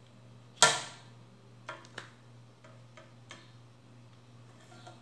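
Handling noise as a fishing rod section is turned over in the hands: one sharp clack about half a second in, then a few light ticks.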